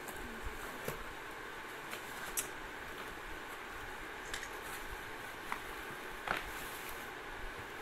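Cardboard box and bubble-wrapped plastic handled by gloved hands as a packed item is slid out: a few short crinkles and taps, the sharpest about six seconds in, over a steady background hiss.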